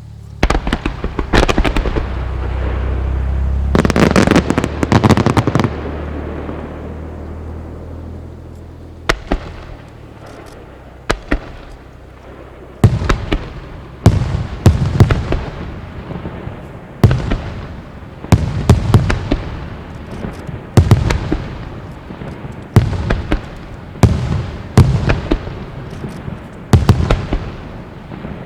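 Starmine fireworks bursting: a dense volley of crackling reports over a rolling low rumble in the first few seconds, two single reports after that, then from about thirteen seconds in a run of sharp bursts about once a second, each trailed by crackle.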